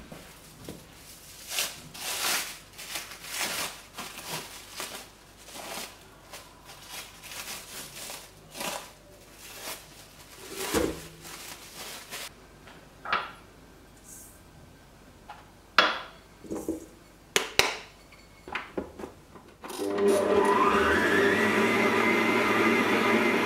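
Handling sounds, rustles and a couple of sharp clicks, as dough goes into a steel stand-mixer bowl. Near the end the stand mixer switches on: its motor whine rises as it speeds up, then runs steadily at medium-high speed with the dough hook kneading bread dough.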